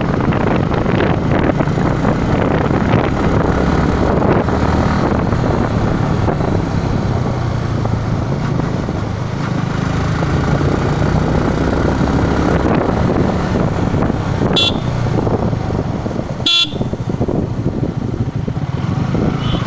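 Yamaha R15 V3's single-cylinder engine running steadily while riding, with two short horn toots about two seconds apart near the end.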